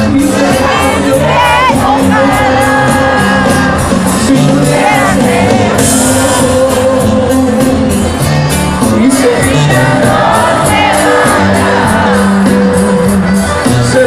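Live norteño-banda music played loud by a band on stage, a singer's voice over sustained bass notes and a steady beat, heard from within the crowd with shouts from the audience.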